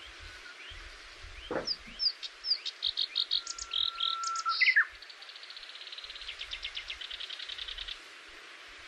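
Wild birds singing: a run of short whistled and chirped notes, then a fast trill lasting about three seconds, over a steady outdoor hiss.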